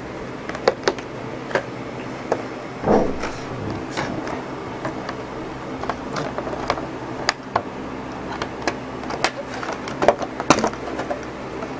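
Handling noise from a headset and its cloth-covered cord: scattered light clicks, taps and rustles, a little louder around three seconds in and again near the end, over a steady low hum.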